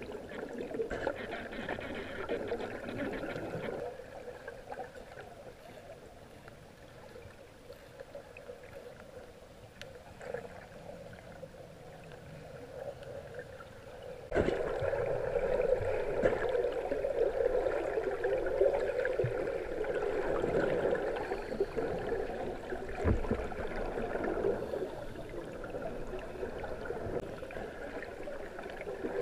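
Underwater water noise, muffled as heard by a camera held under the surface: a steady gurgling, bubbling wash. It drops quieter about four seconds in and jumps suddenly louder again about halfway through.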